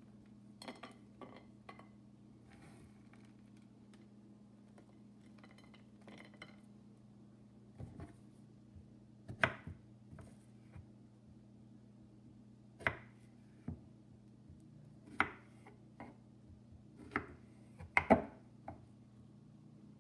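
A kitchen knife knocking on a wooden cutting board as strawberries are sliced, with clinks of cutlery against a plate. About a dozen sharp knocks and clinks come at uneven intervals, the loudest near the end, over a steady low hum.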